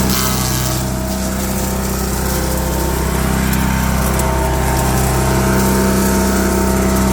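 Wood chipper's small engine running steadily, its note wavering briefly a little past the middle.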